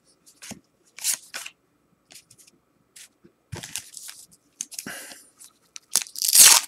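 A waxed-paper trading-card pack being handled and torn open: scattered rustles and crinkles of wax paper and cards, building to a loud crinkling tear near the end.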